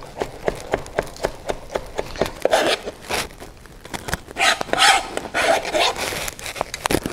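Chef's knife chopping fresh dill on a plastic cutting board, about four quick chops a second for the first two seconds. Then come several scraping, rustling sounds as the dill is worked on and gathered up off the board.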